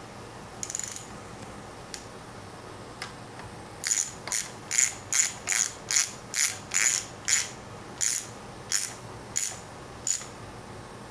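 Hand ratchet wrench clicking in a run of about a dozen short strokes, roughly two a second, starting about four seconds in, after a brief faint metallic rattle near the start.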